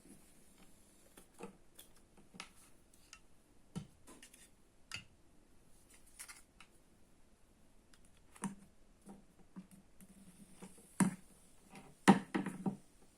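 Scattered light clicks and knocks, now and then, over a faint steady background hum, with a cluster of louder knocks a little after eleven seconds and again around twelve seconds in.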